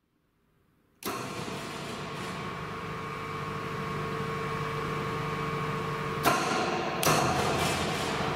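Schäfer SRMVS three-roll plate bending machine starting up about a second in and running steadily with a mechanical hum. Near the end come two sharp clunks about a second apart.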